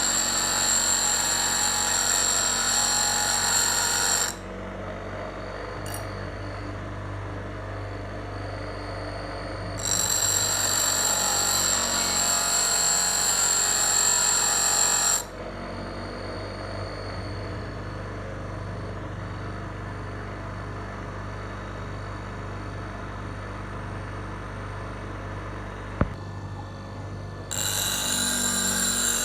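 Bench grinder's motor running steadily while a steel knife blade is pressed against the grinding stone in passes: a loud grinding whine for about four seconds, again for about five seconds in the middle, and again near the end, with only the motor hum between. One sharp click sounds shortly before the last pass.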